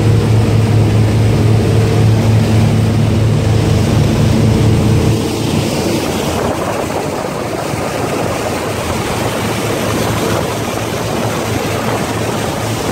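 Twin engines of a Sea Ray 330 Sundancer cruiser droning steadily under way, heard at the helm. About five seconds in, the hum gives way to the loud rush of the boat's wake and spray, with wind.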